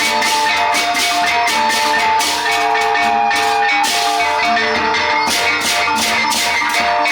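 A Sasak gendang beleq ensemble playing: big drums and clashing cymbals beaten in a steady repeated rhythm under held, ringing metal gong tones.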